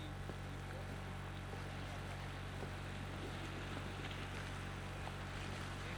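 A steady low mechanical hum under faint outdoor background noise.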